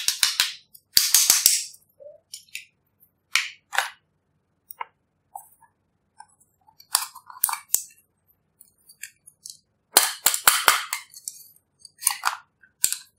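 Small hard plastic cases being handled, snapped and tapped: sharp plastic clicks and short rattling clatters in irregular clusters, the busiest run of clicks about ten seconds in.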